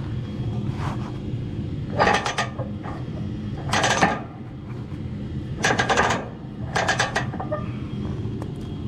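Wooden boards clattering as they are stacked, in four quick bursts of knocks, over a steady low machine hum.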